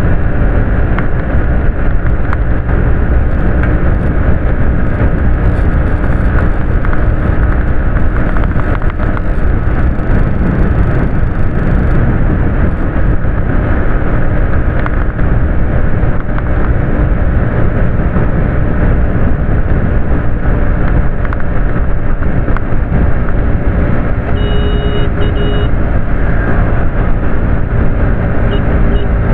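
Bajaj Pulsar NS125 motorcycle's single-cylinder engine running steadily at highway cruising speed, heard mixed with heavy wind rush on an earphone microphone.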